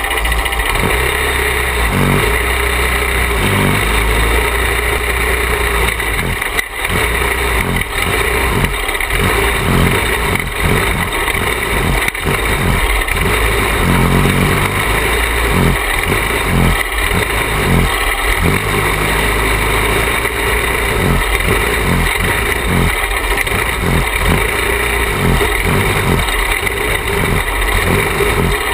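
Small engine of a caged dirt-track racing kart running hard on practice laps, its note rising and falling again and again as the throttle is opened and eased through the turns.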